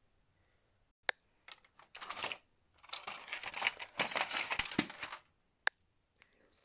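Plastic model train coaches and toy track being handled: a sharp click, then a few seconds of clattering and rustling, and another click near the end.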